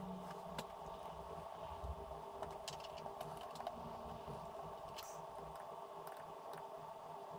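A few scattered light clicks and taps of a screwdriver and fingers working a screw on the Amstrad CPC464's metal cassette deck mechanism, over a steady faint hum.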